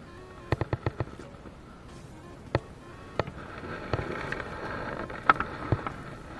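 Sharp clicks and knocks while a freshly caught giant freshwater prawn is handled in a small boat. A quick cluster of clicks comes about half a second in, then single clicks every second or so.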